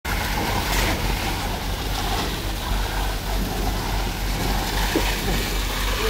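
Concrete pump truck's diesel engine running steadily, a constant low drone under an even wash of machine noise.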